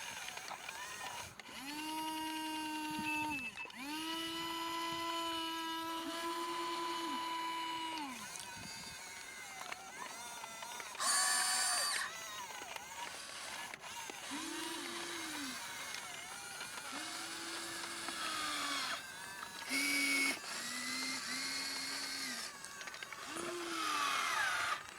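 Whining electric drive motors and gearboxes of radio-controlled toy construction vehicles, starting and stopping again and again in runs of one to four seconds, each rising in pitch as it speeds up and falling as it stops. Twice, about a third and four-fifths of the way through, there is a brief, louder, harsher burst.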